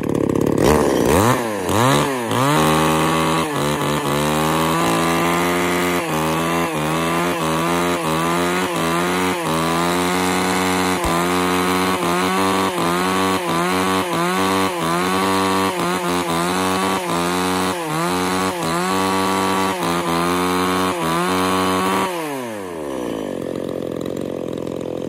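Tanaka 33cc two-stroke chainsaw test-run just after starting, revved up and down about once a second. About 22 seconds in, the revs fall away and it settles to a steady idle.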